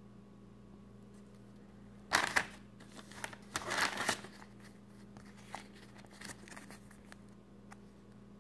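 Paper envelope and thin plastic coin bags crinkling and rustling as they are handled, in irregular bursts starting about two seconds in, loudest in the first two seconds of the handling and tapering off. A faint steady electrical hum runs underneath.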